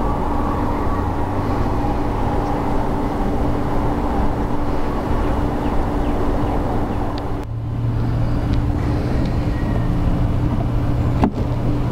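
Honey bees buzzing around an opened hive in a steady, loud drone held at one pitch, with a couple of brief dropouts and clicks near the end.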